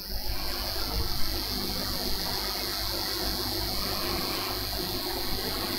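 Steady hiss with a low hum underneath: the background noise of the recording setup, with no speech.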